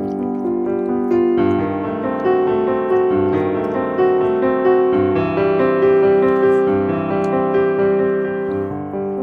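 Background piano music: a keyboard melody over chords.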